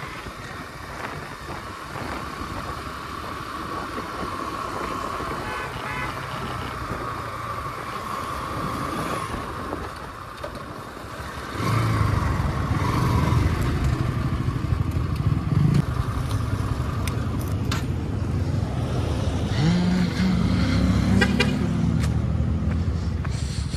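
Bajaj Pulsar NS160's single-cylinder engine on the move, at first under steady road and wind noise. About halfway through, the engine's low running at slow speed becomes much louder as the bike rolls slowly across the lot. Its pitch rises briefly near the end.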